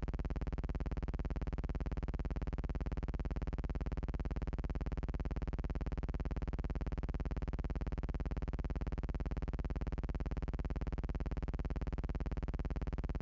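A steady buzzing hum with many overtones and a fast, even flutter, unchanging throughout.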